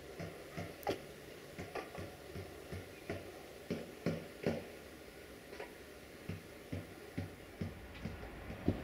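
A dog barking over and over in short barks, about two a second.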